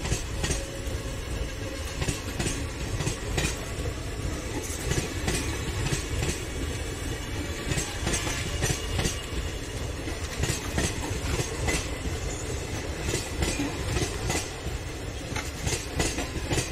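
Passenger express coaches rolling past at speed: a steady low rumble of wheels on rail, with repeated clicking clacks as the wheels cross rail joints.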